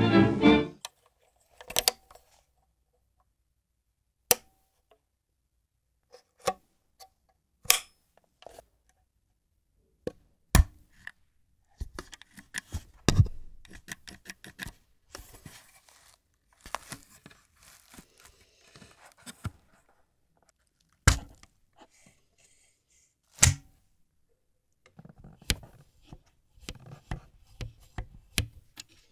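Agfa Billy Compur folding camera being handled: irregular sharp clicks and knocks from its mechanism, with stretches of faint scraping and rubbing of its parts.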